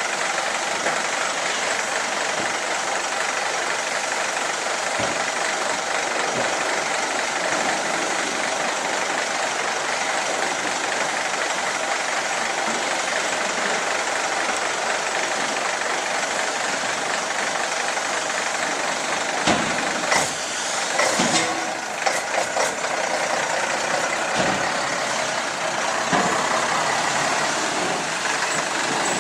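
Dodge-Barreiros C20 truck's diesel engine running steadily, with a few sharp knocks about two-thirds of the way through.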